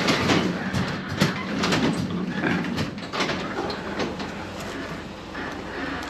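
Garage door being opened by hand, rattling and clattering along its tracks, loudest at first and easing off.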